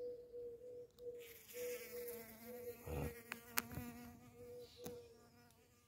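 A bee buzzing at courgette flowers as it forages and pollinates, its faint wing hum breaking off and returning several times. A single sharp click about three and a half seconds in.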